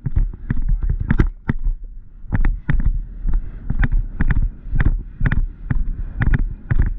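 A horse cantering on turf, its hoofbeats thudding about three times a second, with a brief break about two seconds in as it jumps a log fence. A steady low wind rumble on the helmet camera's microphone runs underneath.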